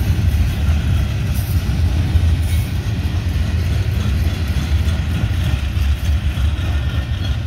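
Loaded ballast hopper cars rolling past: a steady low rumble of steel wheels on the rails.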